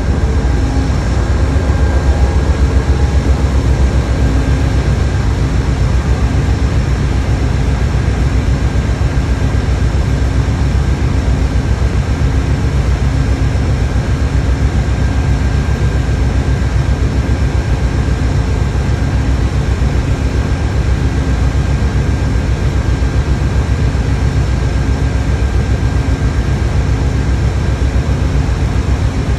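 Amtrak GE Genesis diesel locomotive running steadily at a standstill: a continuous heavy engine rumble with a faint steady whine over it.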